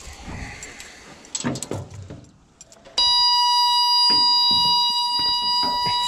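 Faint knocks and rustling, then about halfway through a steady, high-pitched warning buzzer on the Case 1835B skid steer starts abruptly and keeps sounding: the machine's buzzer with the key switched on and the engine not running.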